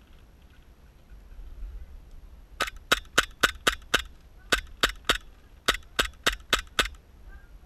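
Airsoft gun firing rapid single shots, sharp cracks about four a second in three quick strings: six, then three, then five.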